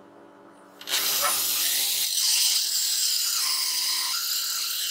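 Cordless drill spinning a hole saw through plywood, starting up about a second in and then cutting steadily.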